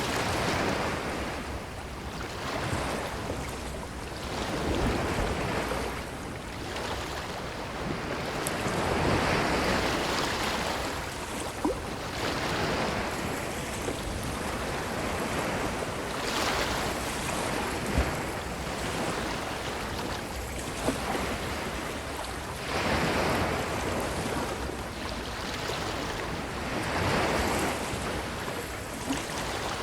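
Ocean waves washing onto a beach, a steady rushing that swells and falls back every few seconds. A few brief sharp clicks stand out against it.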